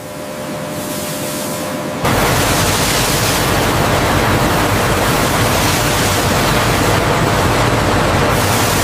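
Water spraying steadily from rows of spray nozzles as a hissing rush, stepping up suddenly to a louder, fuller rush about two seconds in.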